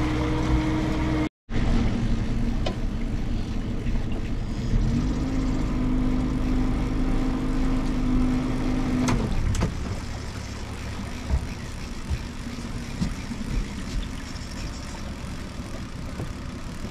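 Boat motor running steadily at trolling speed. It cuts out for an instant about a second in, rises a little in pitch about five seconds in, and settles lower and a little quieter after about nine seconds.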